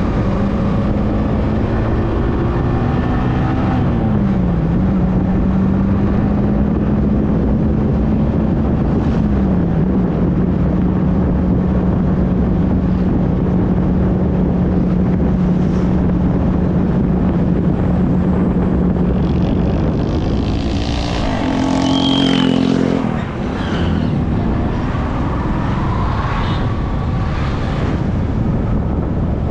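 Yamaha R15M's single-cylinder engine running steadily at cruising speed under a heavy rush of wind noise. The pitch dips briefly twice in the first ten seconds, as at gear changes. A little past two-thirds of the way in, the engine note falls away in a series of descending tones.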